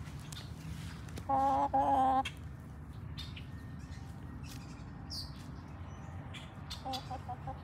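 A hen clucking: two loud, drawn-out clucks with a wavering pitch about a second and a half in, then a few short, soft clucks near the end.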